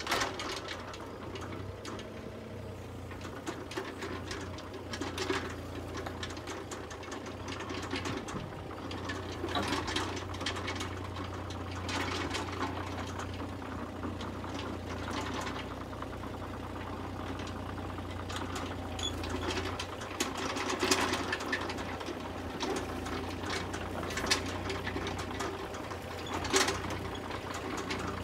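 Mini excavator travelling on a concrete lane: its small diesel engine runs with a steady clatter, and its tracks and frame give occasional sharp clanks.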